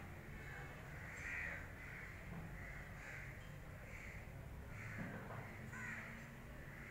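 A bird calling over and over, a run of short calls about two a second, over a low steady background rumble.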